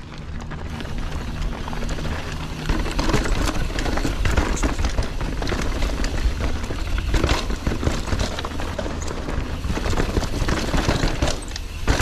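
A YT Tues downhill mountain bike ridden fast down a dirt trail: the tyres rumble over the ground, the bike rattles and knocks irregularly over bumps, and wind buffets the GoPro's microphone.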